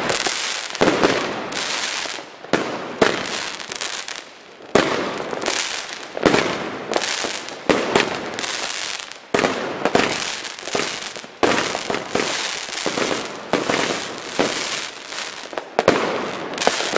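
A 30 mm firework battery (19-shot cake) firing shot after shot: sharp bangs about once a second, with a steady hiss between them.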